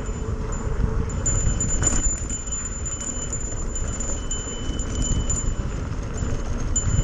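Mountain bike descending a rocky dirt trail: steady low rumble of wind on the microphone and tyres over the ground, with a high, on-and-off metallic jingling from the bike.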